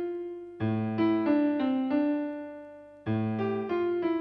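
Background piano music: a short gentle phrase of single melody notes over a low bass note, starting afresh about half a second in and again about three seconds in.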